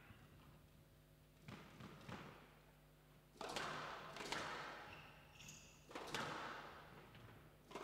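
Squash rally on a glass-walled court: the ball is struck by rackets and smacks off the walls in a series of about seven sharp hits, each ringing on in the hall. There is a brief high squeak near the middle.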